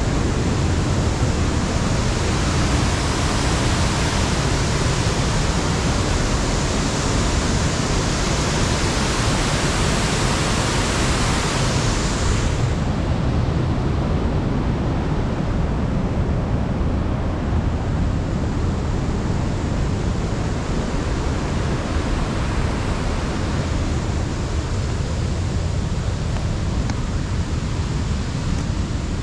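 Steady rushing of a waterfall and fast water over rock, a dense unbroken roar with no pauses. About twelve seconds in, its bright hiss drops away and it turns duller.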